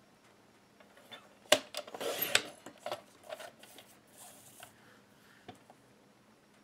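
White cardstock being slid and positioned on a Fiskars paper trimmer: a sharp click about a second and a half in, a short paper rustle, a few light taps, and a brief soft hiss of paper sliding a little after the middle.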